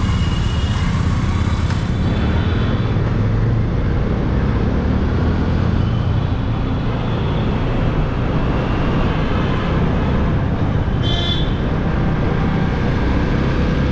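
Riding noise from a Yamaha motorcycle in city traffic: steady wind rumble on the camera microphone, with the engine and surrounding traffic running under it. A short high-pitched tone sounds about eleven seconds in.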